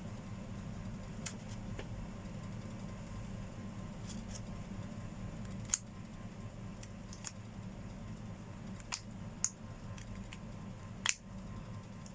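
Scattered sharp clicks and light taps, about a dozen at irregular intervals and loudest about six and eleven seconds in, over a steady low hum; small parts being handled during work on the drill.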